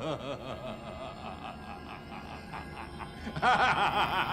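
A man laughing in a low, rhythmic chuckle that swells into louder, open-mouthed laughter about three and a half seconds in.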